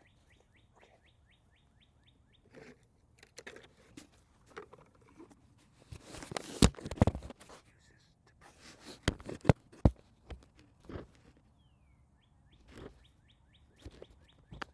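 A bird's fast, even trill near the start and again near the end, with crackling rustles and several sharp cracks in between, the loudest about halfway through.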